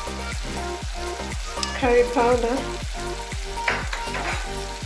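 Carrots, red pepper, onions and tomato sauce sizzling in hot oil in a nonstick wok, with some stirring. Background music with a steady beat plays underneath.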